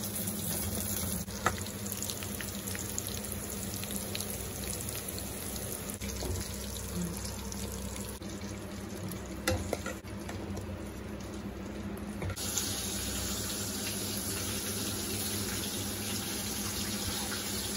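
Hot oil sizzling steadily as chicken kola urundai (minced chicken balls) fry in a metal kadai, with a few faint clinks of a steel slotted spoon against the pan.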